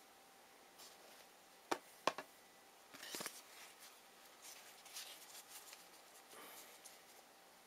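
Trading cards being handled on a table: a couple of sharp taps, a short cluster of taps and rustles, then faint shuffling.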